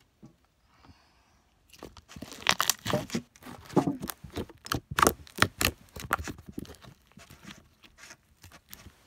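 Glitter slime with fruit decals being squeezed and kneaded by hand, making a run of wet clicks and pops. The sounds are loudest from about two to six seconds in, then grow softer.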